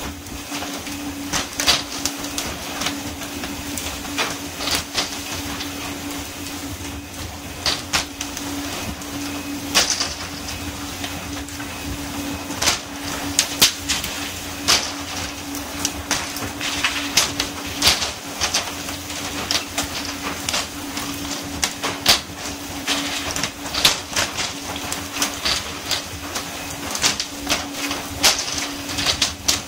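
Tuna being hooked on poles and flung aboard, landing on the deck with sharp knocks and slaps at irregular intervals, several a second at times. Underneath are a steady hum from the boat's engine and the hiss of water spray along the hull.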